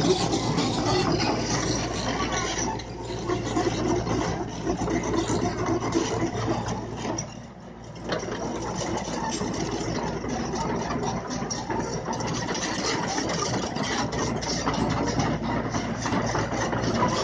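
Komatsu PC75UU mini excavator's diesel engine running steadily as the machine drives forward on its tracks and raises its arm, with a brief drop in loudness about halfway through.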